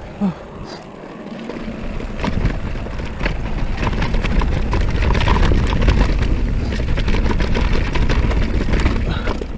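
Mountain bike descending a dirt trail: tyres rolling over dirt and stones with a constant clatter of clicks and knocks from the bike over the bumps, and wind buffeting the microphone. It gets louder over the first few seconds as speed builds, easing off just before the end.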